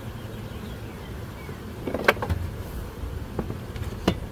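Honeybees humming steadily around an open hive. A few sharp clicks and knocks from working the hive's frames and cover come through, the loudest about two seconds in.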